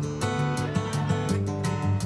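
Acoustic guitar strummed in a steady rhythm, about four strums a second.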